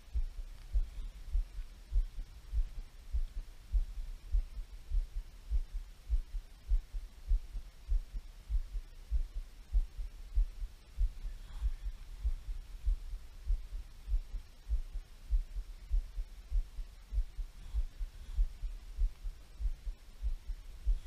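Muffled, deep thumping on a body-worn camera's microphone, irregular at two to four thumps a second, over a faint hum. It is handling or mount noise while the angler works the rod.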